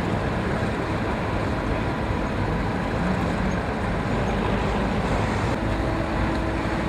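Heavy diesel engines running steadily under load as a bulldozer tows a stuck truck out of sand. A steady engine tone comes in near the end.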